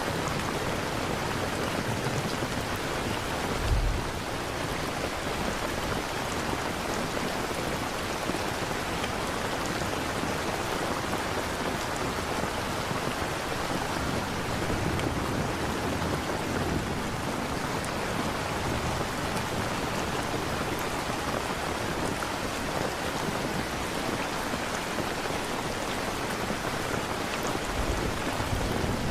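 Steady rain, with a short low thunderclap about four seconds in and a low rumble of thunder near the end.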